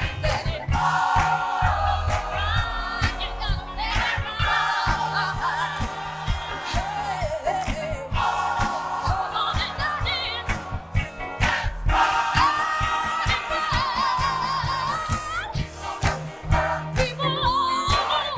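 Gospel choir singing with a live band, a steady drum beat and bass under the voices.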